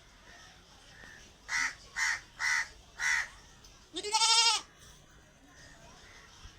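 Goat bleating once, a loud quavering bleat of about half a second. It is preceded by four short harsh calls about half a second apart.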